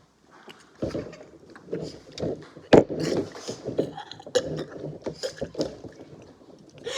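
Soda being chugged: irregular gulping and swallowing, broken by sputtering and stifled laughing as the drinker nearly chokes, with one sharp knock about three seconds in.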